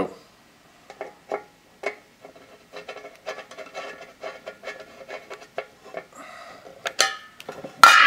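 Phillips screwdriver turning the center screw into an all-metal saucer exercise wheel, a run of small irregular clicks and scrapes as the screw threads in. Near the end come a few sharp metallic clacks as the screwdriver is put down among the tools on the table.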